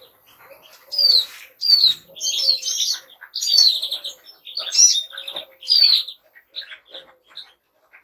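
Finches singing together, goldfinches, greenfinches and siskins: a busy run of twittering chirps and sharp down-slurred whistles, loudest in the first two-thirds and thinning out towards the end.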